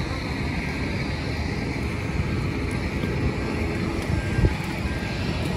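Steady rumble and hum of aircraft and ground equipment on an airport apron, with wind buffeting the microphone and a brief low bump about four and a half seconds in.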